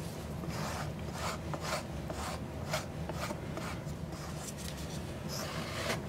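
Flat wooden stick scraping over a stretched canvas as it spreads a thin layer of white acrylic pour paint, in short repeated strokes about two a second.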